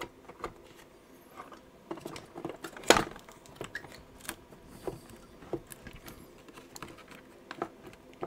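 Scattered small clicks, taps and rattles of metal and plastic parts being handled and pried inside an opened iMac, with one louder clack about three seconds in.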